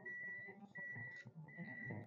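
An electronic beeper sounding a high, even beep over and over, each beep about half a second long with short gaps, about three in all, over a faint low background hum.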